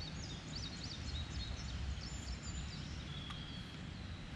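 Outdoor creekside ambience: a small bird sings a quick run of repeated high chirps through the first couple of seconds, then gives one short whistle, over a steady low rumble.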